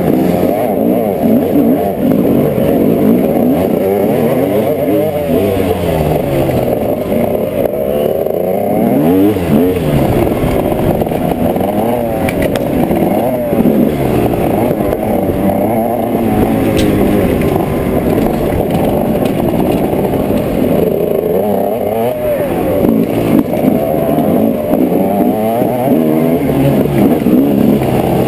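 Dirt bike engine revving up and down hard and continuously while riding a rough trail, with the engines of other dirt bikes close ahead revving as well.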